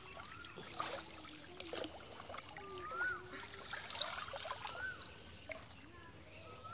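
A small hand net is swept through shallow muddy pond water, with irregular splashes and the trickle of water running off it. A repeated rising-then-falling call sounds every couple of seconds behind it.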